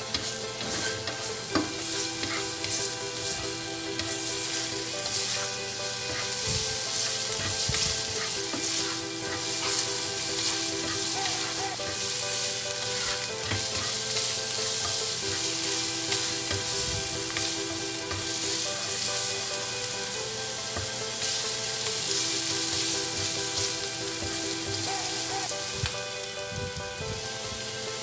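Minced garlic sizzling steadily in hot oil in a frying pan, stirred with a silicone spatula that scrapes and taps the pan now and then.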